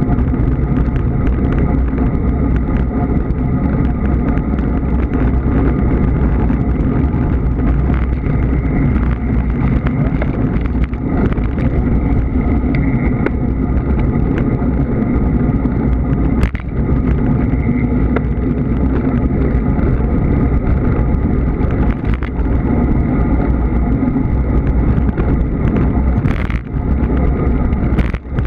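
Steady rushing wind and road noise from a road bicycle ridden at speed, with a few sharp knocks, one about halfway through and another near the end.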